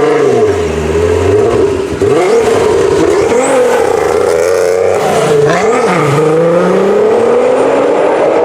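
Car engine revved repeatedly, its pitch swinging up and down in short blips, then climbing steadily and evenly over the last few seconds as the engine is held under rising revs.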